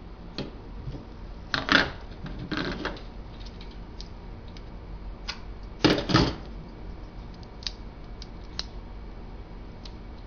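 Small plastic clicks and taps of craft paint bottles and a plastic paint palette being handled on a tabletop, with two louder rattling clatters, about two seconds in and about six seconds in.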